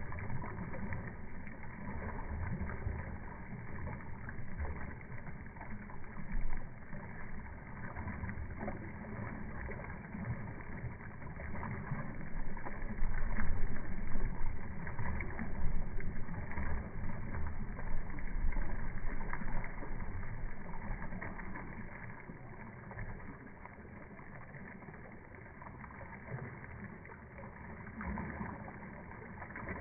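Floodwater rushing and swirling along a flooded roadside, a steady wash of noise, with a gusty low rumble of wind on the microphone that grows louder in the middle and eases off toward the end.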